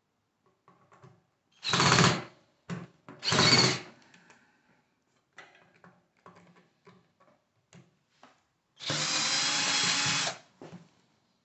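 DEKO cordless drill-driver backing out the cover screws of a Bafang geared hub motor. It runs in two short bursts about 2 and 3.5 seconds in, then a longer run of about a second and a half near the end, with small clicks of the bit and screws between.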